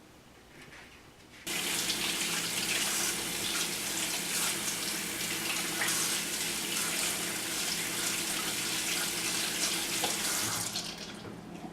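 Running water, a steady rush with a faint low hum under it, starting abruptly about a second and a half in and dropping off near the end.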